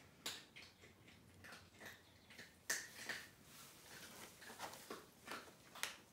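Large brown paper bag crackling and rustling in faint, irregular sharp crackles as a dog and a cat shift about inside it.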